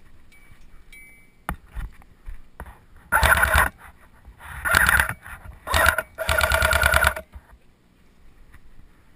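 JG AKS-74u airsoft electric gun firing four short full-auto bursts, a fast even rattle of shots, the last burst the longest at about a second.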